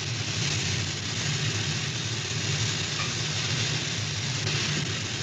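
Steady machinery drone with a constant hiss: a submarine's running engines as a sound effect while the boat is submerging.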